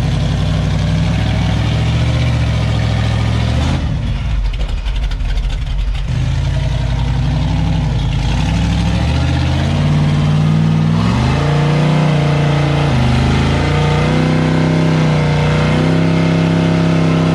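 Rock-crawler buggy's engine running under load on a steep rock ledge, its revs swinging up and down repeatedly from about eleven seconds in as the tires spin on the rock.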